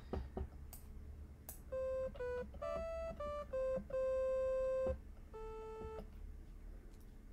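Bespoke Synth software synthesizer playing a short run of about eight single notes in a plain, clear tone, the next-to-last held for about a second before a lower final note.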